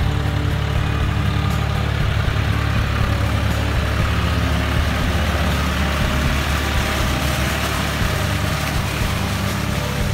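John Deere 5045D tractor's three-cylinder diesel engine running steadily under load, pulling a rotavator that churns through flooded paddy mud.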